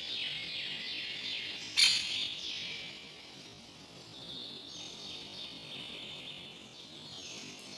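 A dense chorus of small forest songbirds chirping and trilling, with one sharp, loud call about two seconds in.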